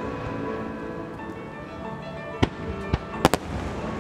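Aerial firework shells bursting over music: four sharp bangs in the second half, the last two in quick succession, with music playing throughout.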